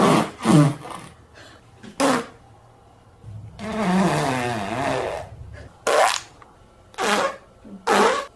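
A run of fart sound effects. Two short farts come in the first second and a brief one about two seconds in. Then a long, wavering fart of about two seconds falls in pitch, followed by three short blasts about a second apart near the end.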